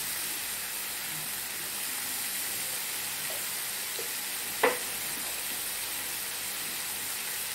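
Sausage with chopped tomatoes and peppers sizzling steadily in a frying pan, with one sharp click about four and a half seconds in.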